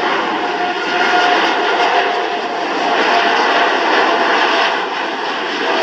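Boeing 787-8 Dreamliner's jet engines roaring steadily as the airliner rolls down the runway at speed, with a faint steady whine riding over the roar.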